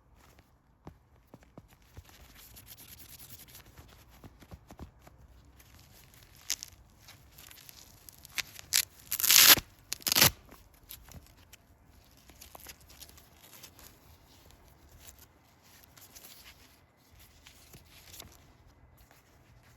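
Unboxing packaging being handled: scattered rustling and crinkling, with two loud rips close together about halfway through.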